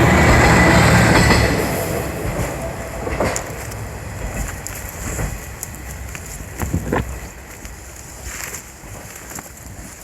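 A train passing close by and then pulling away, its rumble fading steadily over several seconds, with the wheels clacking over rail joints a few times as it recedes.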